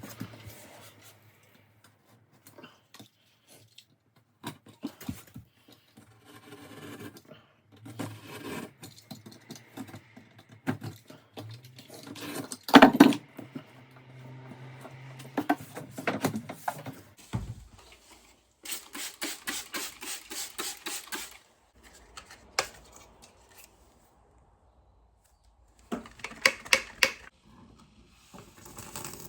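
Hand work with tools and building materials: scattered knocks and clatter, one sharp loud knock about halfway through, and two bursts of fast, even scraping or rasping strokes in the second half.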